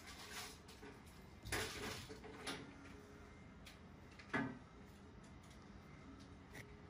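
Faint room tone broken by a few brief knocks and rustles: a short rustle about a second and a half in, a smaller one soon after, and a sharper, louder knock a little past the middle.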